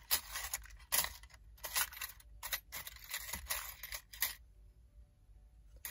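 Small metal craft embellishments clicking and rattling as they are picked through by hand: a quick run of short clicks and light rustles that stops after about four seconds.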